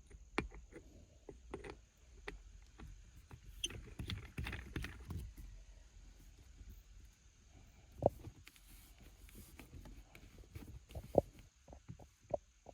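A weighted shift knob being screwed onto an S197 Mustang's shift lever: scattered small clicks and knocks of handling and threading, with a few sharper taps near the end.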